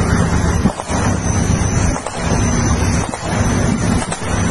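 Diesel engine of an armoured tracked vehicle idling close by, a steady low drone, with wind buffeting the microphone.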